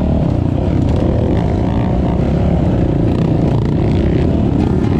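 Dirt bike engine running steadily while riding a trail.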